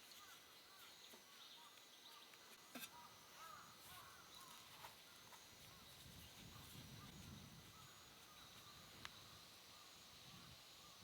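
Near silence: faint outdoor ambience with two soft clicks, one about three seconds in and one near nine seconds.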